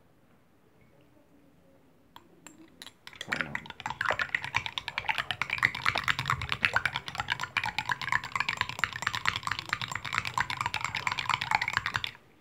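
Teaspoon clinking rapidly and continuously against the inside of a thin tea glass as sugar water is stirred to dissolve the sugar. A few light taps come first, then the fast clinking starts about three seconds in and stops abruptly near the end.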